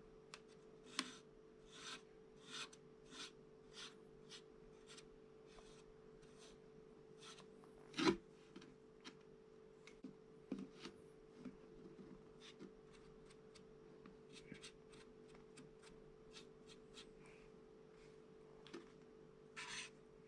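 Short scratchy rubbing strokes on a hair dryer's filter mesh as the dust is cleaned off. The strokes come in a quick run of about one or two a second, then more sparsely, with one louder knock about eight seconds in and a faint steady hum underneath.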